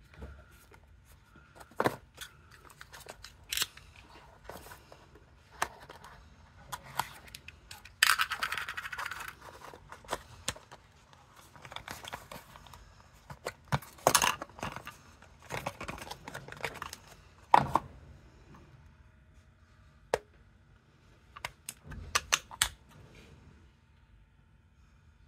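Small cardboard charger box and its contents handled by hand while being opened: scattered sharp taps and clicks, a rustling scrape lasting a couple of seconds about eight seconds in, and more clicks and scrapes as the plastic charger and cable are taken out.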